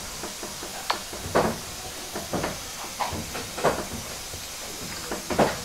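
Water hammer in the steam-heating pipes of a vintage passenger coach: irregular sharp knocks and bangs, roughly one every half second to a second, over a steady hiss of steam. This is steam striking condensed water in the cold pipes.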